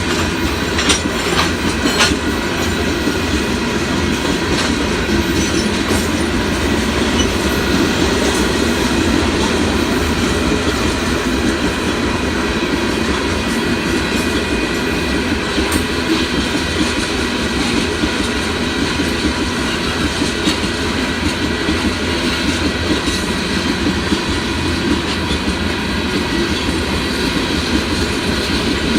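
Union Pacific rock train passing: a steady, loud run of steel wheels on the rails, with a few sharp clicks in the first couple of seconds.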